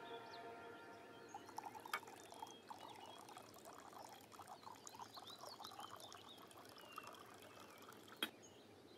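Tea poured from a ceramic teapot into china cups: a faint, wavering trickle, with a light click about two seconds in and another near the end.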